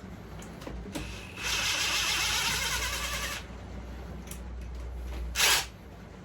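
Impact gun running for about two seconds as it undoes a bolt, then a short second burst about five seconds in.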